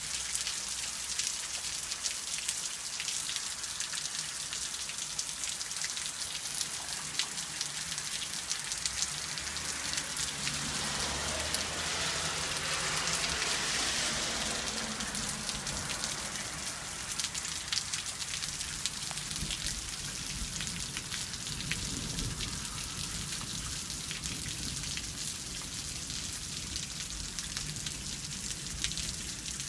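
Steady rain falling, a dense hiss of drops with many separate sharp drop ticks. It swells louder for several seconds near the middle, and a low rumble comes in about two-thirds of the way through.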